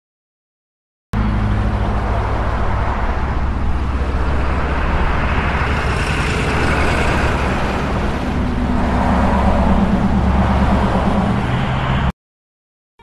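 City street traffic noise: a steady, loud rush with a low rumble from passing cars and motorcycles. It starts abruptly about a second in and cuts off suddenly near the end.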